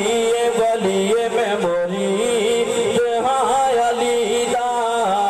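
A man singing a Punjabi naat, a devotional poem in praise of the Prophet, into a microphone, drawing out long held notes that bend and waver in pitch.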